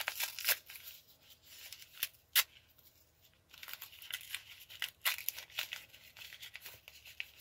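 Paper wrapping crinkling and crackling in irregular bursts as it is pulled open by hand, with one sharp crackle a little after two seconds in and a short lull about a second later.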